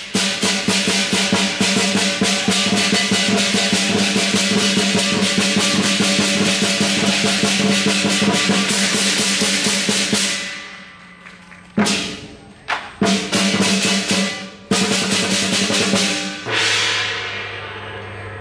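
Lion dance percussion: a large drum beaten in a fast, dense roll with clashing cymbals. It drops away about ten seconds in, comes back in a few short bursts, and ends in a ringing fade near the end.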